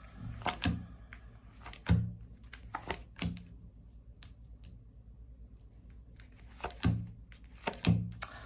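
Tarot cards being handled and laid down on a table: a scatter of short taps and soft slaps, some with a dull thud, in two bursts with a pause between.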